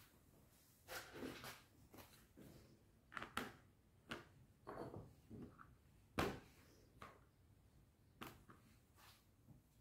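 Plastic ice-pop molds and their clear lids being handled on a table mat: a string of light plastic clicks and knocks as a lid is pressed on and the molds are moved together, the loudest knock about six seconds in.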